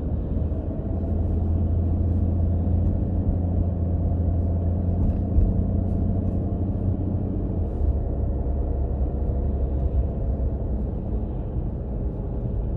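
Car driving: a steady low engine and road rumble.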